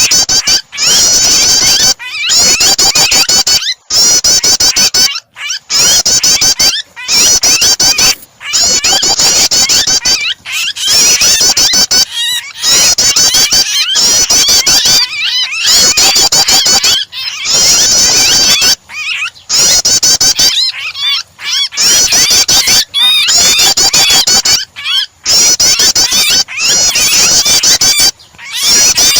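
Prenjak (prinia) song mixed with the shrill distress cries of a trapped bird, as used in a starter recording to provoke caged birds into singing. Dense, rapid high chirping comes in loud phrases of a second or two, broken by short pauses.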